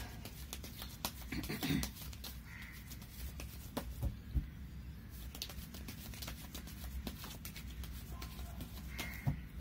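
Tarot cards being shuffled by hand: a run of irregular soft card clicks over a low steady hum.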